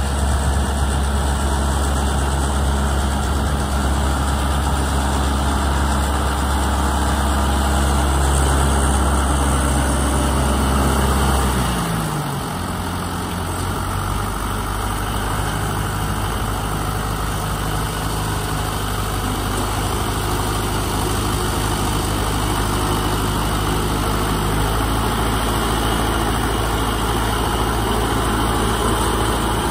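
Engine of a tracked rice-hauling tractor running steadily. About twelve seconds in it drops in pitch, then runs on at a steady lower speed.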